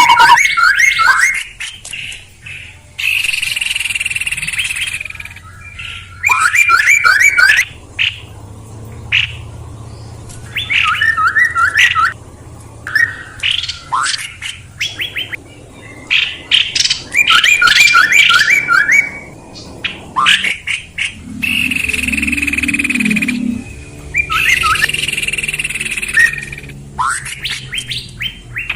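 Songbird calls from a bird lure-call recording: short, rapid runs of sharp chirping notes alternate with drawn-out harsh, hissing calls about a second and a half long, repeated over and over.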